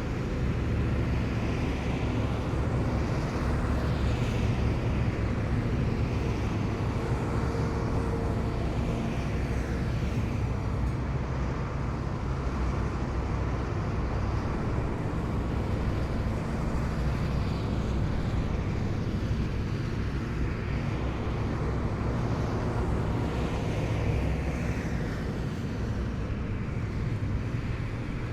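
A column of heavy military vehicles driving past, their diesel engines making a steady low drone, with swells in the noise as individual vehicles go by.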